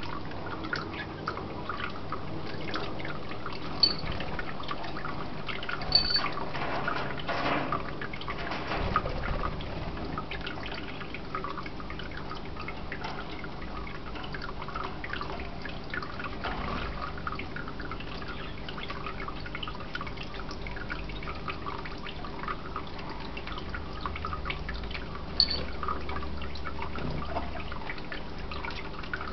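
Budgerigars chattering: a constant mix of short chirps and clicks, with three sharp high peeps standing out, two in the first six seconds and one near the end.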